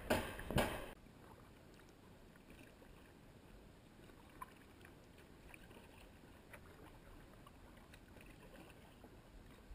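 Loud metallic strikes of a pile-driving hammer, about two a second, end suddenly about a second in. Then faint, even water sound around a kayak follows, with a few small knocks.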